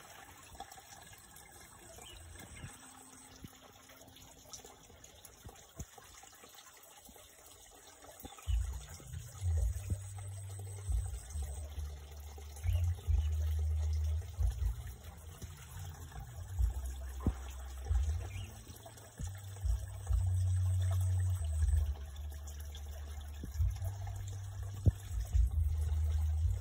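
Soft water sloshing and stirring as hands feel through a shallow stream pool. From about eight seconds in, heavy low rumbling buffets come and go on the microphone, louder than the water.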